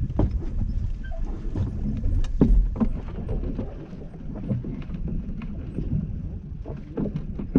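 Low rumble of a fishing boat at sea, with scattered short knocks and clicks from the gear on deck.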